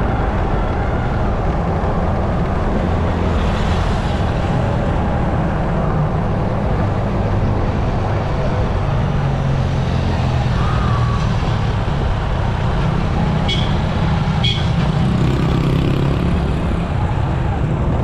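Steady low engine rumble and road noise from a vehicle driving along a street. Two short high-pitched beeps come about three-quarters of the way through.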